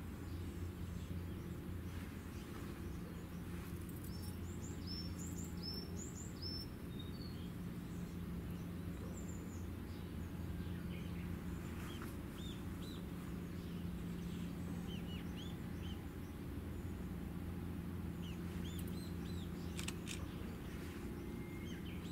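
Small birds chirping in a few scattered bursts of short high calls, the busiest about five seconds in, over a steady low hum.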